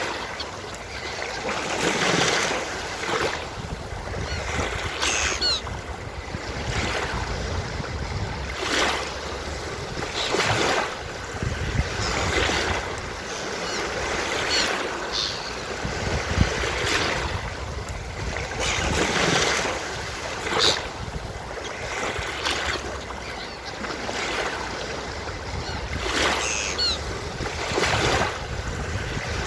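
Ocean surf breaking and washing on a beach in repeated surges, with a few brief seagull calls now and then.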